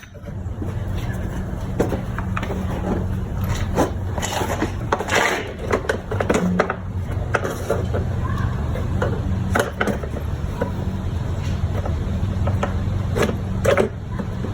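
Irregular clicks, knocks and scrapes of a hand tool and a plastic engine-bay cover being worked loose, over a steady low hum.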